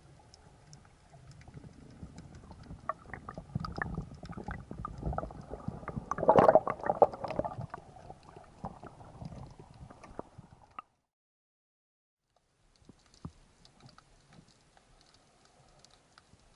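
Underwater rumbling and clicking from the diver's own handling as a speared white seabream is drawn in along the spear line and grabbed by hand, loudest in a burst about six seconds in. The sound cuts out completely for about two seconds just before the middle of the second half, then only faint clicks remain.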